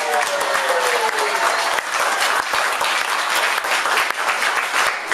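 Audience applauding, a dense patter of clapping that stops abruptly at the end. A voice calls out with a falling pitch over the first second or so.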